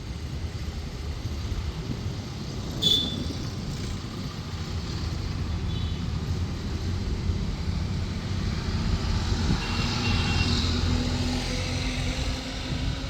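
Steady low outdoor rumble, a little louder in the second half, with a short sharp high chirp about three seconds in and a few faint brief high tones later.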